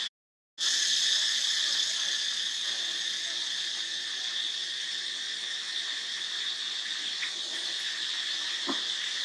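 Steady insect chorus, a high even drone, which drops out completely for about half a second at the start.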